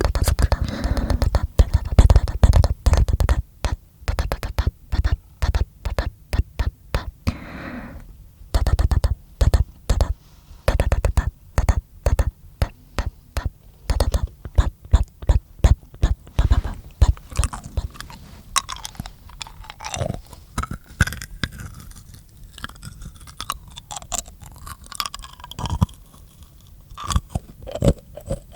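Close-miked mouth sounds: rapid, dense clicks and pops from the mouth and tongue, thinning out after about sixteen seconds into slower, sparser clicks and smacks.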